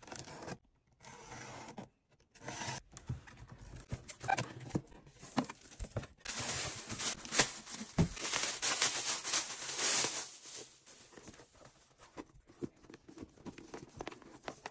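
Hands opening a cardboard shipping box, then pulling a handbag out of a clear plastic bag and stretch wrap, the plastic rustling in irregular handfuls; busiest and loudest from about six to ten seconds in.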